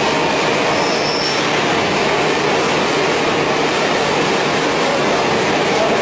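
Machinery of a french fries production line running: mesh-belt and slatted stainless-steel conveyors and their drives make a loud, steady mechanical din.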